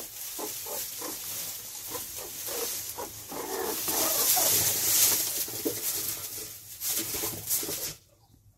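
Meerkats making short, quickly repeated calls over a rustling hiss of straw; the sound cuts off shortly before the end.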